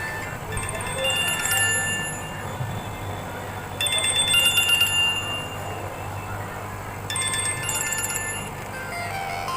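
Jio F220B feature phone's loudspeaker playing its ringtone: three bursts of several tones at a time, about every three seconds, which shows the ringer working after the repair.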